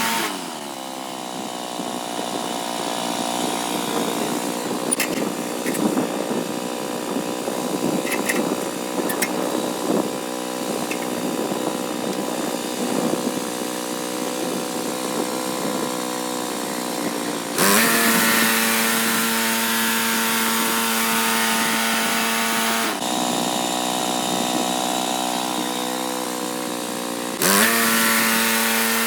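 Gas engine of a Woodland Mills HM126 portable bandsaw mill running at high speed. Its pitch drops at the start and runs unevenly for about 17 seconds as the band blade cuts through the log under load, then jumps back to a steady higher speed as the load comes off; it sags once more about 23 seconds in and picks up again near the end.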